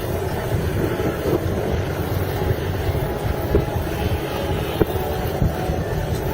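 Helicopter running, a steady rumbling drone with wind buffeting the microphone.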